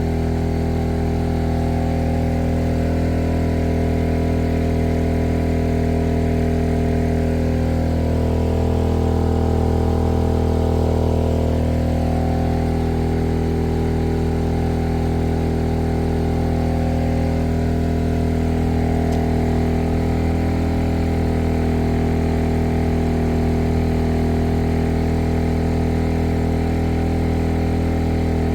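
Maxpeedingrods MXR4000GT inverter generator's single-cylinder four-stroke OHV engine running steadily under near-full load, about 3,200 watts. Its note wavers slightly in pitch a couple of times as it holds speed under the load.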